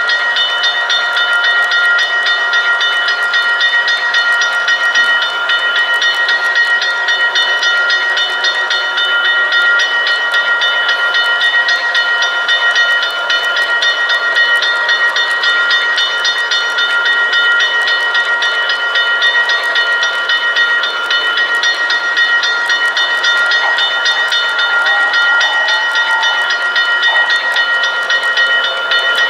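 Model train running on the layout track: a steady high-pitched hum with a fast, even ticking over it that does not change.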